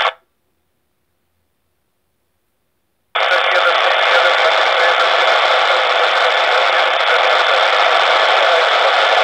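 Scanner receiving narrowband FM on the railway radio channel: the squelch opens on a transmission that carries only static hiss and no speech. A rush of noise stops right at the start, and after about three seconds of silence a steady hiss switches on sharply and cuts off just as sharply near the end.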